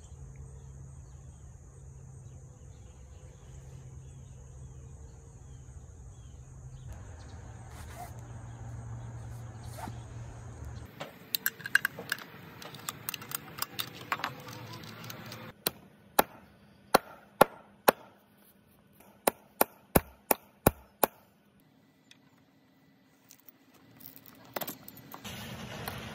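Sharp metal-on-wood strikes, about nine in five seconds, as a titanium cat's paw nail puller is driven into lumber to dig under nail heads. Before them, a steady low background noise and a few lighter knocks.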